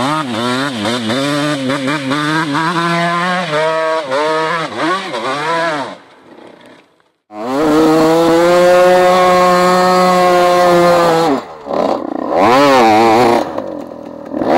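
Dirt-bike engines revving hard on a steep hill climb. First come quick rises and falls in revs, then after a short break near the middle a Kawasaki KX125 two-stroke is held at high revs for about four seconds under load, with more rises and falls near the end.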